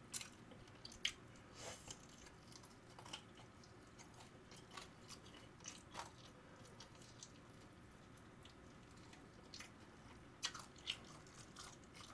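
Quiet close-miked chewing of sauce-coated fried chicken, with scattered soft crunches and wet mouth clicks at irregular moments and a few more near the end.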